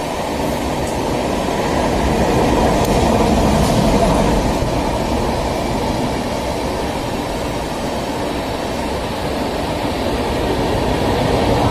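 Passenger train moving through a station: a steady rumble of coaches on the track, swelling a little about four seconds in and again near the end.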